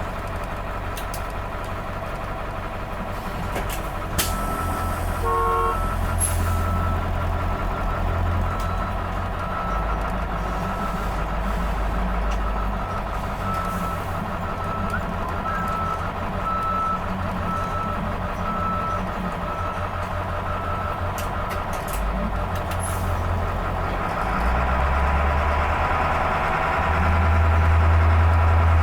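School bus diesel engine running while its reverse alarm beeps about once a second; near the end the engine grows louder.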